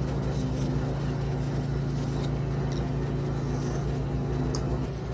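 Steady low mechanical hum of a running motor, with a few faint light clicks.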